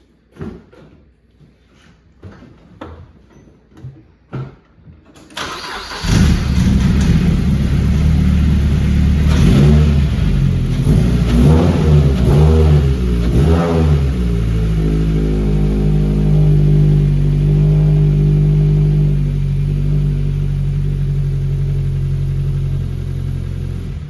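A few clicks and knocks, then the 2006-2008 Mazda MX-5 Miata's 2.0-litre four-cylinder engine starts about six seconds in, is revved up and down several times, and settles into a steady idle. It is running after its brittle ignition coil-pack wiring pigtails were repaired to cure a misfire.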